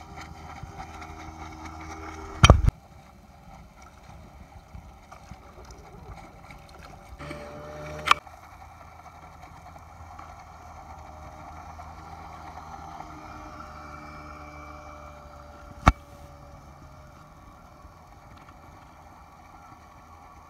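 Motorized surfboard running across the water with a steady, even sound. Three sharp pops break in, the first and loudest about two and a half seconds in, the others near eight and sixteen seconds.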